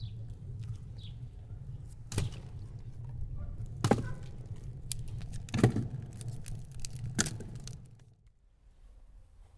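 Split firewood logs knocking against each other and against a tandoor as they are fed into it: four sharp wooden knocks about a second and a half apart, over a low steady rumble that fades near the end.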